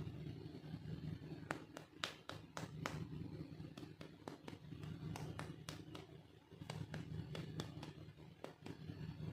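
Hands handling small plastic toy pieces and packaging: irregular sharp clicks and taps, some in quick clusters, over a low steady hum.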